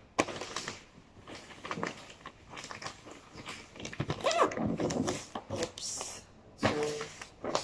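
Glossy gift-wrapping paper crinkling and rustling as it is folded and pressed around a large cardboard carton, in irregular crackles and scrapes.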